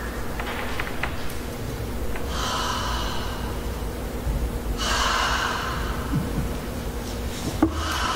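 A vocal ensemble making breathy, unpitched sounds as part of a contemporary choral piece: two rushes of breath of about a second each, about two seconds apart, with a third starting near the end.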